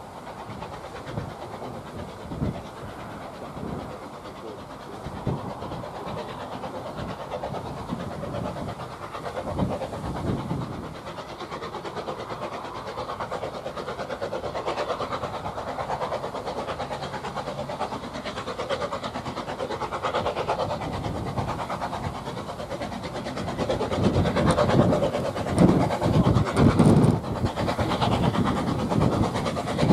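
Narrow-gauge steam locomotive hauling a train and approaching, growing louder throughout, with a rhythmic chuffing that is strongest over the last few seconds.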